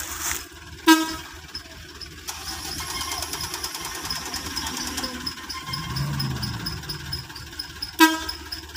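Short vehicle horn toots, one about a second in and one near the end, from the palm-oil trucks queued in the mud. Between them a truck engine runs steadily and swells briefly around six seconds in.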